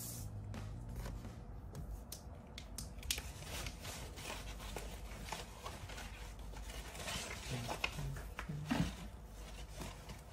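Paper and a cork coaster being handled on a cutting mat: rustles, slides and light taps, with scattered clicks. Near the end, a person hums a few low notes.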